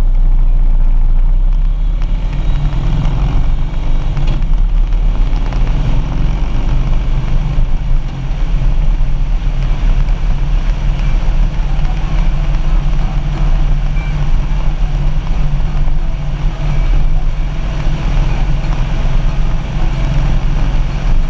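Harley-Davidson Street Glide's V-twin engine running steadily under way, mixed with wind noise on a camera mounted behind the windshield.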